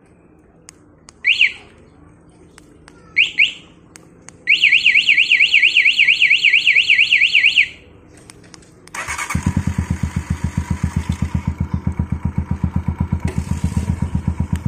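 Aftermarket motorcycle alarm on a Honda TMX 125 giving two short rising chirps, then a fast warbling siren for about three seconds. A couple of seconds later the bike's single-cylinder engine is started from the alarm remote and idles with an even pulse.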